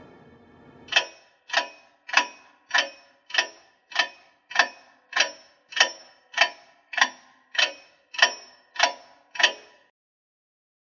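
A clock ticking steadily, just under two ticks a second, each tick sharp with a short ringing tail. Fifteen ticks, then it stops shortly before the end, with the last of an eerie music sting fading out just before the first tick.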